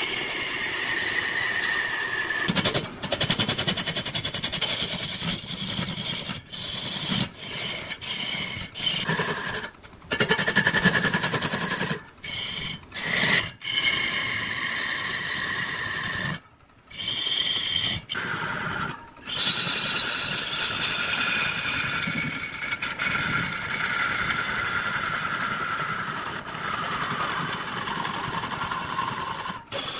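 A turning tool cutting into wood spinning on a large wood lathe: a continuous noisy cut with a high whine that shifts in pitch, broken by many short gaps, the longest about halfway through.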